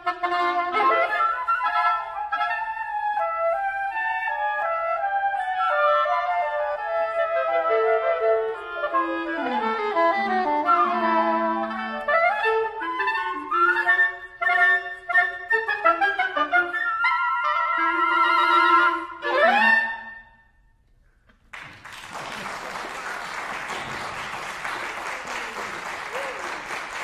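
A woodwind quartet, clarinet among its instruments, plays the closing bars of a piece in fast interweaving lines. The music ends on a last rising note about twenty seconds in. After a short silence the audience applauds.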